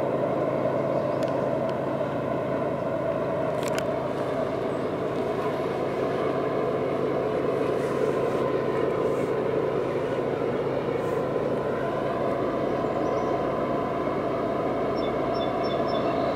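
Freight train approaching from a distance behind GE ES44AC and ET44AC diesel locomotives: a steady engine drone and rail noise that holds even throughout.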